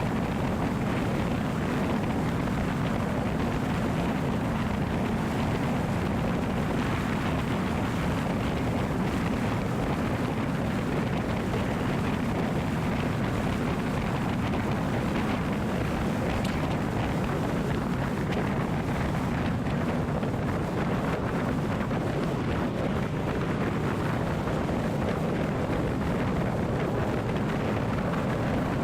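Steady vehicle noise: an even low rumble with a hiss above it that holds unchanged throughout.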